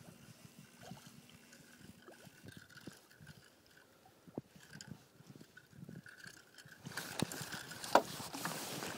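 Small striped bass thrashing and splashing at the surface beside a boat as it is brought in to the landing net, louder over the last two seconds with one sharp knock about eight seconds in; before that only faint knocks and rustles.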